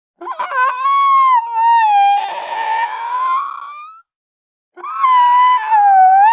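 A person's high-pitched wailing cry, drawn out twice with a wavering pitch, turning rough and breathy partway through the first cry.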